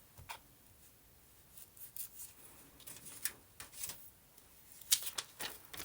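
Short scratchy rubs and rustles of paper and a thin metal stencil being handled and inked, coming in irregular strokes that are loudest about five seconds in.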